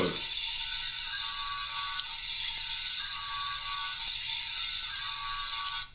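CNC milling machine's end mill cutting metal dry at high speed: a steady high-pitched whine over a hiss of cutting and flying chips, which stops abruptly near the end.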